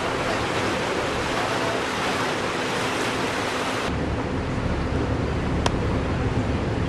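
Steady rush of wind and river water heard from the deck of a moving cruise ship. About four seconds in it cuts to a deeper, lower rush, with a single short click shortly after.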